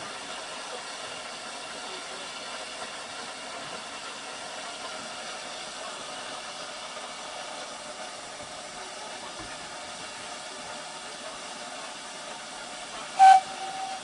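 Steam hissing steadily from low down on a steam locomotive. Near the end comes one short, sharp toot of the locomotive's steam whistle, the loudest sound.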